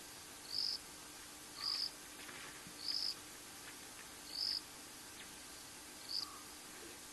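Short high chirps from a night-calling creature, five of them at a steady pace a little over a second apart, over a faint steady background hiss.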